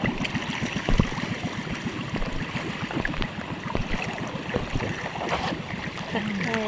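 River water rushing and splashing around a paddled boat being taken upstream, with scattered knocks, one louder about a second in.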